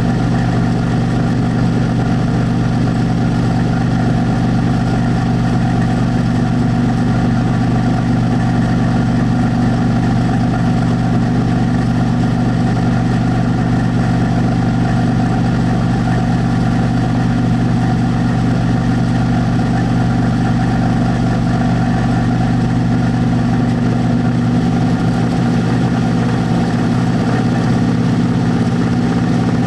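VIVOSUN 203 CFM 4-inch inline duct fan running steadily, a loud even hum with a low drone, heard with the microphone about 2 cm from the fan.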